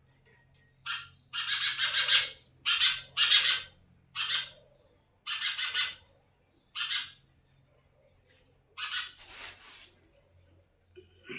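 House sparrows calling: harsh, raspy chirps in about eight bursts, with short pauses between them.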